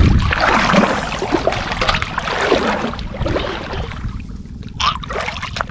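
River water splashing and sloshing as a person wades and reaches down under the surface, loudest in the first few seconds, then settling, with another short splash near the end.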